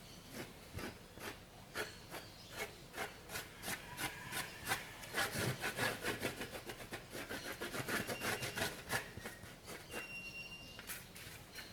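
Repeated scratchy rubbing strokes as white paint is worked onto the rough, cement-coated surface of a styrofoam fake log, about two to three strokes a second, quickest and loudest in the middle.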